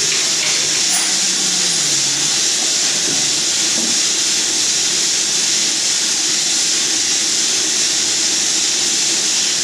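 A steady, loud hiss of air, with a faint low machine hum beneath it.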